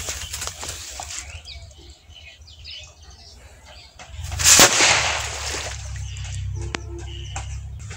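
Homemade matchstick-head cracker going off about four seconds in: a rising fizzing rush that peaks in one sharp crack and dies away over about a second. Birds chirp around it.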